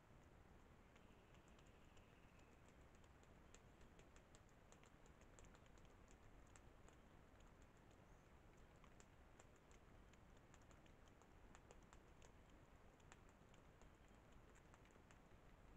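Near silence: a faint steady hiss with many tiny, irregular ticks and clicks scattered through it.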